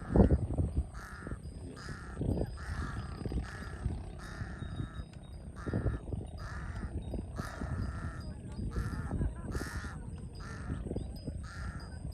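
Large-billed crow cawing: a steady series of short, harsh caws, about one or two a second. Low thumps break in now and then, the loudest right at the start.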